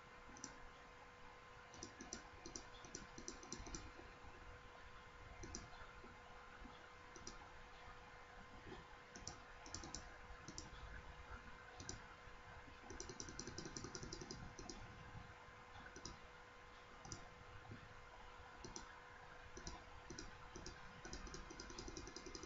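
Faint computer mouse clicks, some single and some in quick runs around the middle and near the end, over a faint steady tone.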